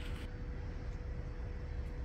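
Steady low background rumble with a faint, steady hum.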